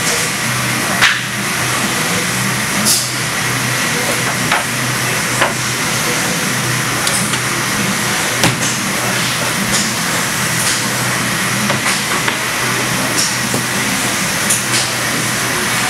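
CNC machining centre running, with a steady whir of its spindles and dust extraction over a low hum, and sharp knocks from the cutting head at irregular intervals.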